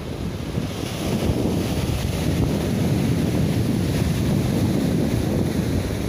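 Sea surf washing onto the shore, with wind buffeting the microphone in a low, steady rumble that grows louder about a second in.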